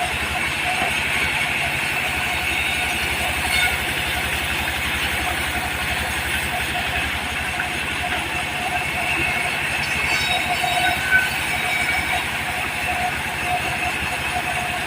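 Mobile sawmill's diesel engine running steadily with a fast, even pulse, under a steady whine from the spinning saw.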